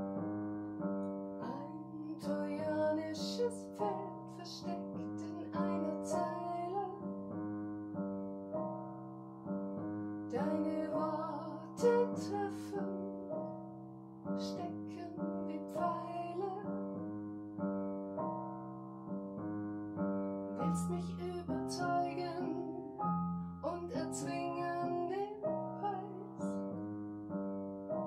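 Upright piano playing a steady accompaniment of repeated chords, with a woman singing a ballad in German over it in phrases that start about two, ten and twenty seconds in.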